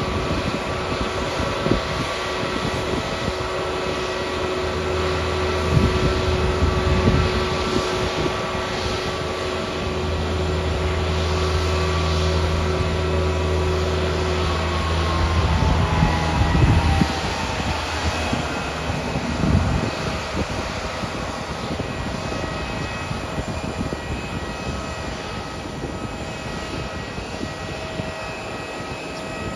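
Steady whine of a parked jet airliner over background noise. About halfway through, some of its tones fall away as an engine spools down, and a steady higher whine carries on.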